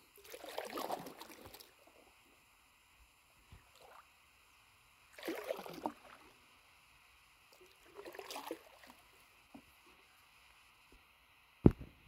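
Stand-up paddle strokes in calm river water: three splashes of the paddle blade, about three seconds apart, with a sharp click near the end.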